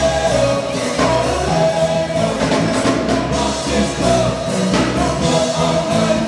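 Live party band playing an upbeat dance song, with drums, keyboards and lead vocals.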